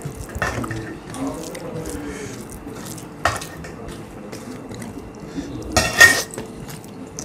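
Steel spoons clinking against metal plates and a steel serving bowl while food is served and eaten by hand: a few sharp clinks, the loudest cluster about six seconds in.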